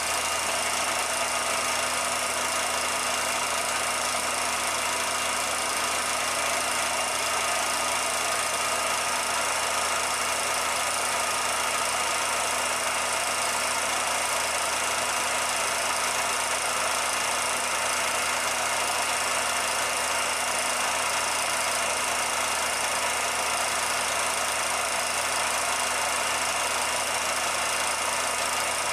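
Steady mechanical running noise, an even hiss with a few constant hum tones, unchanging throughout. It is not from the filmed scene, since the footage has no sound of its own.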